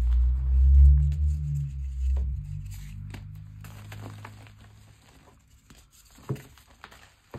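Hands sweeping through loose pink gym chalk powder, with a deep rumble for the first two seconds or so. Then soft crunching and crackling as chalk is squeezed and a chunk crumbles, with one sharper crack about six seconds in.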